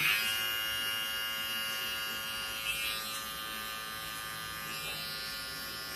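Wahl Mini Arco pet trimmer running with a steady electric buzz, moved back and forth through a puppy's coat around the rear for a sanitary trim.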